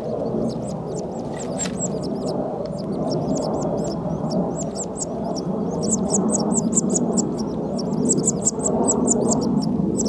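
Common linnet nestlings begging with rapid high-pitched peeping, which gets faster and louder about halfway through, over a steady low rushing noise.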